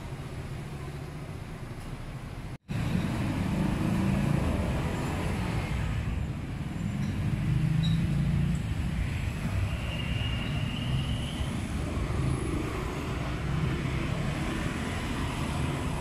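Street traffic: vehicle engines and tyre noise making a steady rumble. The sound cuts out completely for a moment about two and a half seconds in, then comes back louder.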